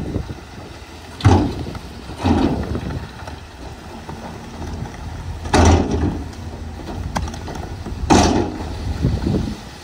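Dump truck unloading: the diesel engine runs at a steady low hum while rock and dirt slide out of the raised tipper bed, with four heavy crashes spread across the few seconds.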